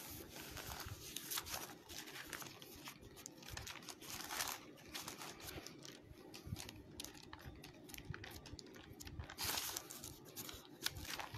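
Thin Bible pages rustling and crinkling as they are leafed through by hand to find a passage, with a couple of louder swishes of turning pages.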